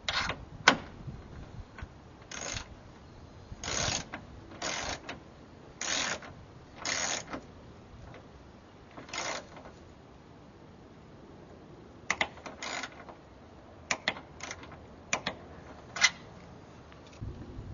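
A torque wrench ratcheting in short runs as it turns a hood damper bracket bolt. In the second half it gives way to a string of sharper single clicks.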